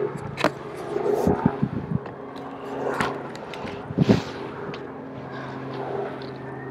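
Several sharp knocks and scrapes in the first four seconds, with a steady low engine hum underneath that holds on through the rest.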